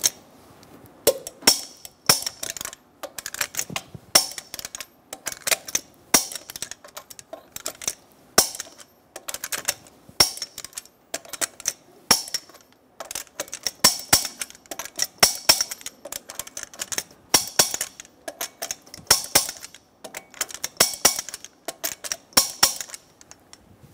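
Torque wrench and socket on a pickup's wheel lug nuts: bursts of sharp ratcheting clicks, nut after nut, as the lug nuts are tightened to 140 ft-lb.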